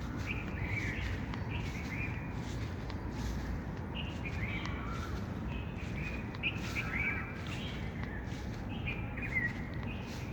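Small birds chirping and twittering in short scattered calls over a steady low background hiss.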